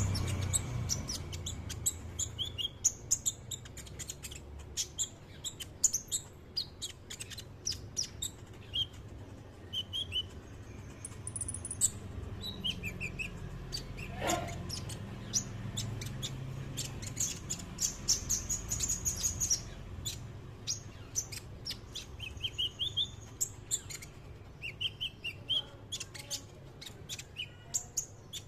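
Sunbird (kolibri) singing: a long run of quick, high chirps and short trills with brief pauses between phrases, over a faint low hum.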